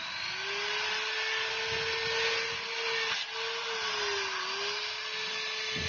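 Electric drill motor running steadily with a high whine. It spins up right at the start, and its pitch sags briefly about four seconds in as it takes load.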